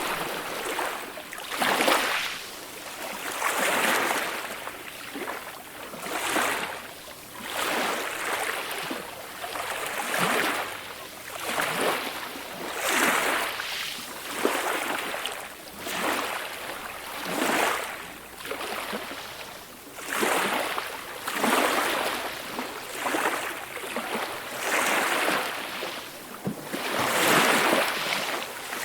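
Small ocean waves washing onto a shore, a rushing swell that rises and falls about every two seconds.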